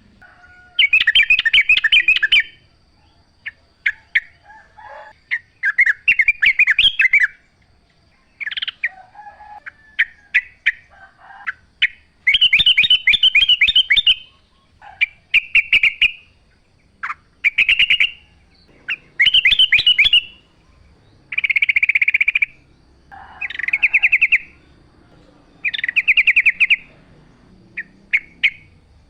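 Sooty-headed bulbul singing: loud, rapid chattering phrases about a second long, repeated every second or two, with fainter, lower calls in the gaps between them.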